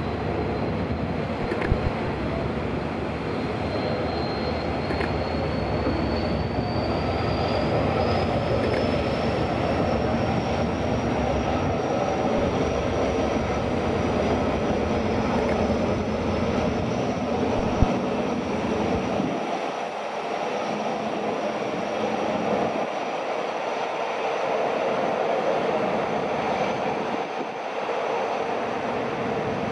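Diesel engines of an Austal 40 m high-speed catamaran ferry running as it pulls away from the berth: a steady rumble with a thin whine that climbs in pitch between about four and ten seconds in, then holds.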